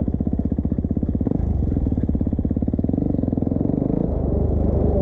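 Dirt bike engine running at low speed with a rapid, even pulse, picking up a little about four seconds in.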